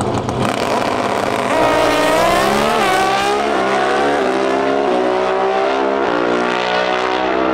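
Two Pro Stock drag-racing motorcycles launching off the starting line and accelerating down the drag strip at full throttle. The engine pitch climbs and drops back with each upshift, several shifts in a few seconds.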